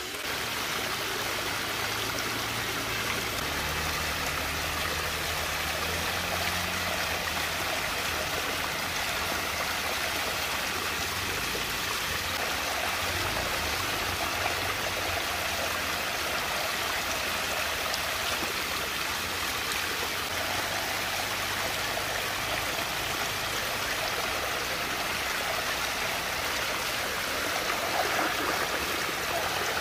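Water swirling and rushing steadily down a whirlpool vortex. Near the end a hand plunges into the swirling water with a splash.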